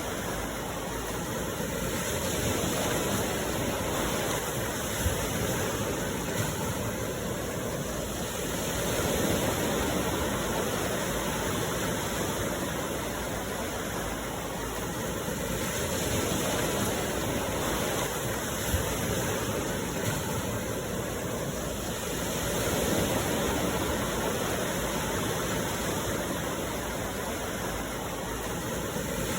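Sea surf washing onto the shore: a steady rush of waves that swells and eases every six or seven seconds.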